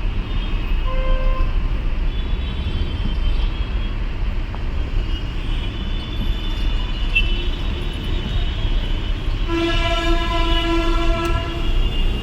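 Horns of surrounding vehicles in dense, slow city traffic over a steady low rumble of engines. There is a short toot about a second in, faint high horns through the middle, and a strong horn blast lasting about two seconds near the end.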